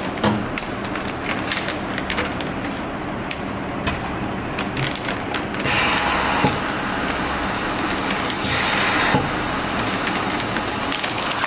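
Foil moisture-barrier bag crinkling and rustling as it is fitted over the sealer's nozzles. A little over halfway through, a nozzle-type vacuum sealer starts drawing the air out of the bag through its stainless steel twin nozzles with a steady, loud hiss.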